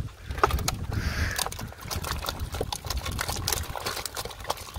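A plastic crate full of freshly caught carp being lifted and handled: irregular clicks, knocks and slaps from the crate and the fish in it.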